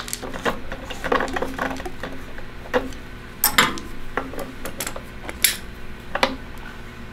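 Hard plastic and metal parts of a water sampler being handled: a metal coupler and nut worked by hand and with pliers on rubber tubing through a plastic end cap. Irregular clicks, clinks and rubbing, with a few sharper clinks in the second half.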